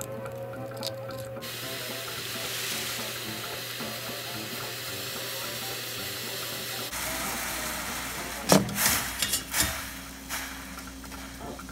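Pot of water boiling on a gas burner: a steady hiss, with a few loud sharp knocks from about eight and a half to ten seconds in.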